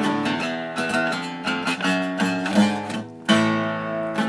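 Acoustic guitar played alone between sung lines, chords strummed and left to ring, with a short drop about three seconds in before a fresh strum.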